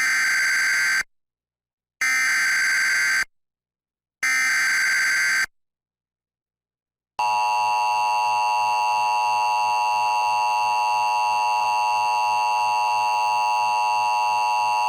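Emergency Alert System SAME header: three short bursts of warbling digital data tones, a second or so each and about two seconds apart. About seven seconds in, the steady EAS attention tone starts and holds, announcing a new severe thunderstorm warning.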